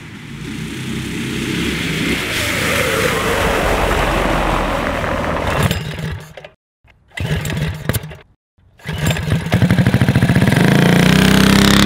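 Small single-cylinder Predator 212 engines on a four-engine go-kart running at high revs as it drives by. About six seconds in the sound cuts out twice, then an engine fires with fast regular pulses and revs up.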